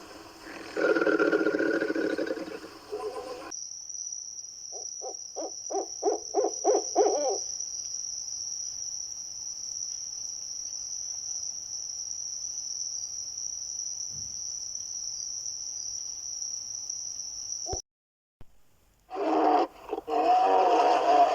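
A steady, high-pitched insect trill running for about fourteen seconds, with a quick series of about ten short low hoots early in it. A different loud animal call comes before it and another starts near the end.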